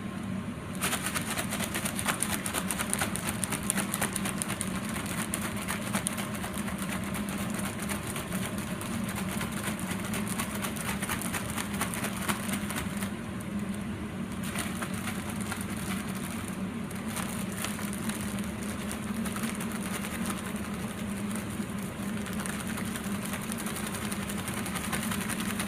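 Chicken pieces being shaken in a bag of corn flour to coat them: a fast, continuous rattling and rustling that eases briefly about halfway through.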